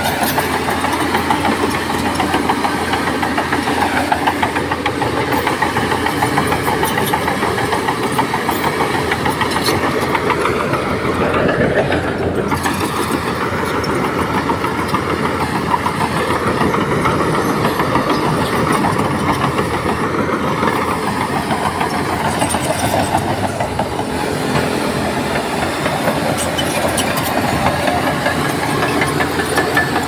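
Heavy diesel engine of earthmoving machinery running steadily with a dense mechanical rattle, its pitch rising and falling briefly around the middle.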